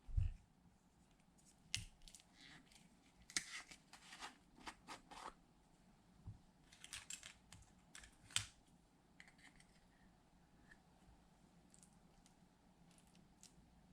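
Slime being mixed and worked by hand, giving irregular sticky clicks and crackles in short bursts, mostly in the first eight seconds and fainter after.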